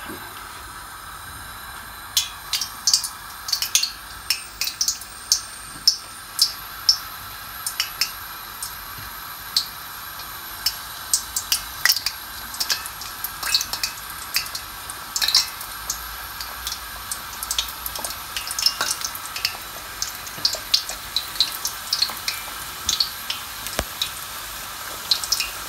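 Samosas deep-frying in hot oil in a wok: a steady sizzle with many sharp, irregular pops and crackles, starting about two seconds in.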